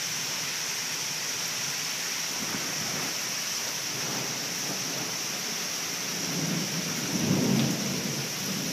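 Heavy rain pouring steadily, with a low rumble swelling and fading about seven seconds in.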